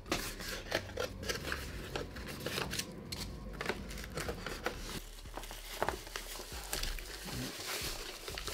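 Unboxing handling noise: a cardboard box flap opened and a unit in a foam packing sheet lifted and handled, with irregular rustling of the foam wrap and cardboard and small scrapes and taps.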